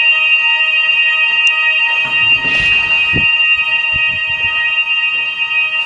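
A building's fire alarm sounding one loud, steady, unbroken tone. A few low thuds and some rustling join in from about two seconds in.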